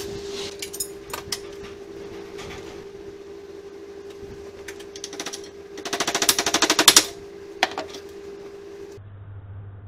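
Metal clicks and clatter from wire being worked at a steel bench vise: scattered sharp clicks, then just past the middle a fast rattle of about a dozen ticks a second lasting about a second, over a steady hum.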